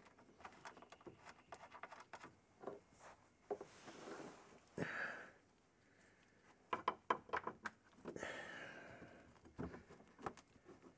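Exhaust flange bolts being fitted by hand overhead: clusters of small metallic clicks and taps as bolts are handled and threaded, with a couple of strained breaths of effort in between.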